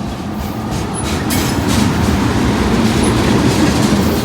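Freight train cars rolling past close by: a steady rumble of steel wheels on the rails, with wheels clacking over rail joints about a second or two in.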